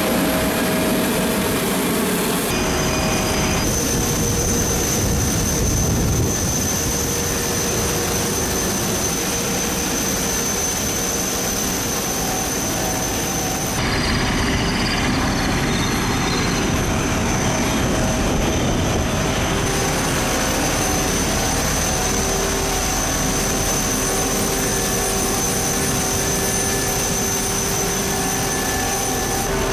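Steady noise inside an Airbus A350-900 cockpit from its Rolls-Royce Trent XWB jet engines and air systems, with a thin high steady whine over it. The sound changes abruptly a couple of seconds in and again near the middle.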